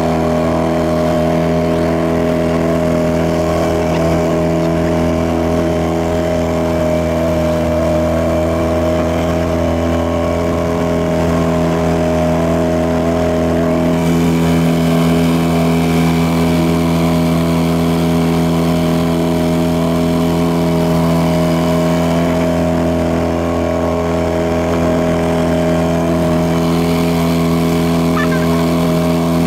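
Yamaha 4 hp single-cylinder outboard motor running steadily at cruising throttle, pushing the inflatable boat along, with water rushing past the hull.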